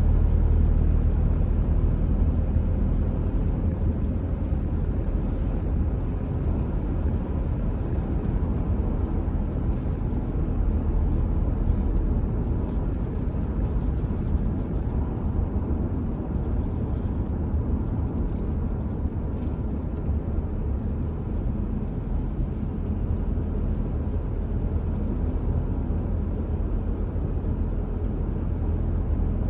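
Car driving at a steady speed: a continuous low rumble of tyres on the road with the engine underneath.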